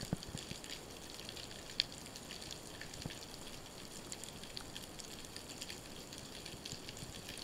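Underwater ambience recorded through a camera housing: a steady hiss with many fine scattered clicks and crackles, and a low thump right at the start and another about three seconds in.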